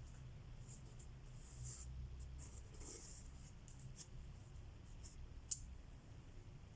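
Needle and thread being worked through cross-stitch fabric: faint, short soft swishes of thread pulled through the cloth, with one sharp tick about five and a half seconds in.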